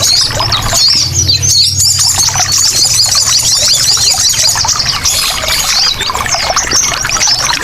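Several sogon birds chattering busily, a dense run of fast, high chirps and warbles with no pause, over the steady sound of trickling water.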